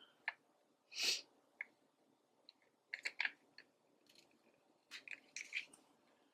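Faint, short crinkly rustles and peels of paper sticker sheets being handled, coming in a few small clusters.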